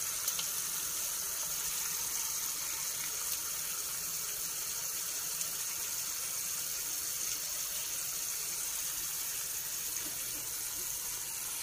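Minced pork simmering in chicken broth in a pan, a steady bubbling hiss.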